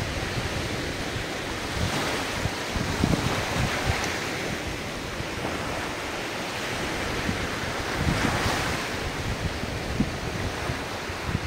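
Ocean surf washing in, swelling twice, about two and eight seconds in, with wind buffeting the microphone.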